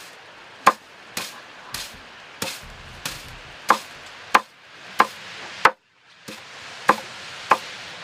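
Oak scutching knife striking a bundle of flax against a wooden scutching board: about a dozen sharp whacks in a steady rhythm, roughly three every two seconds, beating the broken woody straw out of the fibres.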